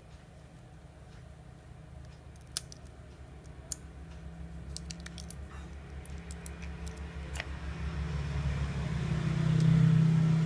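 Several small sharp clicks and taps from a phone being taken apart, over a low engine hum from a passing motor vehicle that grows to its loudest near the end.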